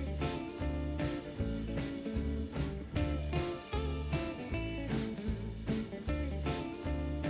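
Background music: guitar-led country-blues instrumental with a steady beat of about two strokes a second.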